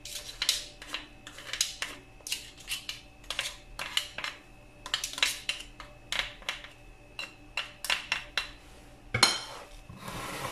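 Metal fork scraping and clinking against a hand-mixer beater and a bowl to clear off leftover cream: a run of quick, irregular clinks and scrapes, with one louder knock near the end.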